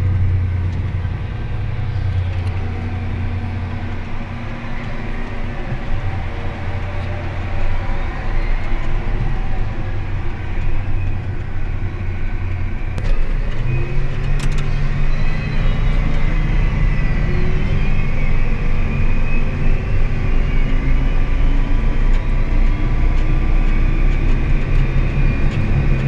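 Farm tractor engine running, heard from inside the cab as it pulls away. About halfway through it runs higher and louder at road speed, with a faint high whine over the hum.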